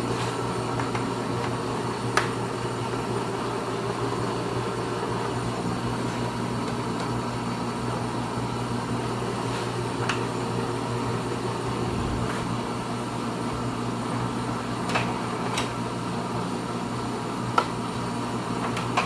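Pratt & Whitney lathe running under three-phase power, a steady mechanical hum, with a few faint ticks from the machine.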